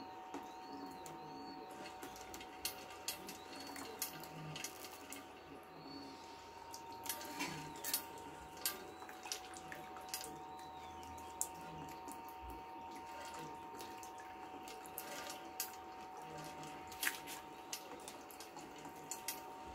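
Water couplant trickling and dripping around an ultrasonic corrosion scanner's probe on a steel pipe, with scattered sharp clicks as the scanner is moved and a faint steady two-note hum under it all.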